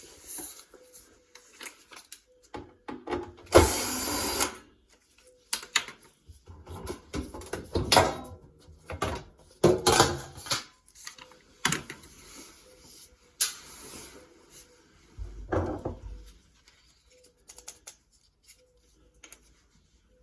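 Tools and dishwasher parts being handled: irregular clicks, knocks and scrapes, with a longer, louder rustle about four seconds in and another shortly before the end.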